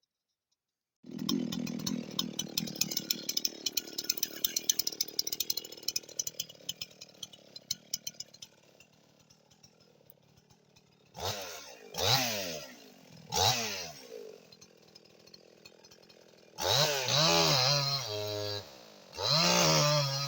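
Two-stroke chainsaw running with a clattering rattle that dies away, then blipped three times in quick succession. It is then held twice at full revs with a brief drop between.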